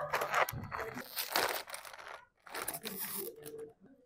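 Bag of Doritos Nacho Cheese chips crinkling and tearing as it is handled and opened. The sound comes in two stretches, broken by a brief drop-out about halfway, and cuts off suddenly near the end.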